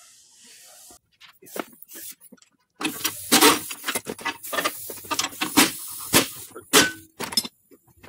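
Metal clattering and clinking: a quick, irregular run of sharp knocks, sparse at first and thick from about three seconds in, typical of exhaust parts and hand tools being handled.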